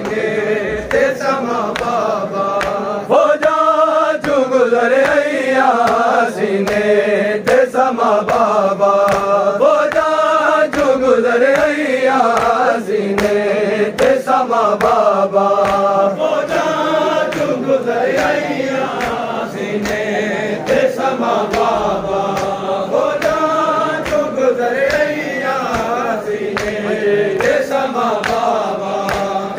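Men's voices chanting a noha, a Shia mourning lament, in a slow melodic line, with steady rhythmic chest-beating (matam) strikes beneath it.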